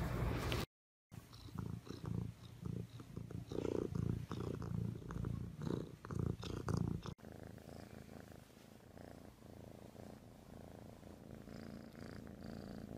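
Domestic cats purring close to the microphone, a low rumble that swells and fades with each breath. It breaks off briefly under a second in, is loudest in the first half, and is fainter and steadier in the second half.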